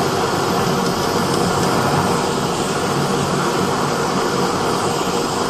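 Two handheld gas torches burning steadily, their flames blown into a sand-and-plaster crucible to melt scrap aluminium cans, making a continuous, unbroken rushing noise.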